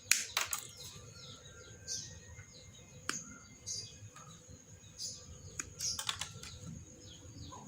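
Irregular sharp clicks and snaps of a fibre optic drop cable being stripped and handled, with birds chirping in the background.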